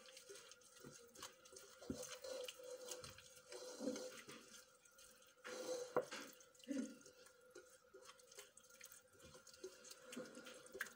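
Faint, irregular wet squelching of a hand mixing an oily chermoula marinade of olive oil, lemon juice, garlic, herbs and spices, with fingers scraping the ceramic plate.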